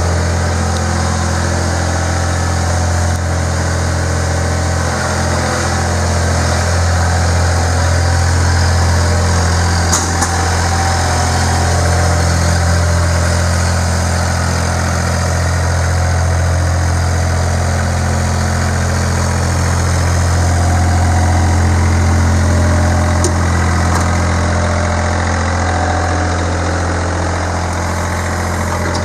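John Deere 1445 mower's Yanmar three-cylinder diesel engine running steadily, a constant low hum with no change in speed.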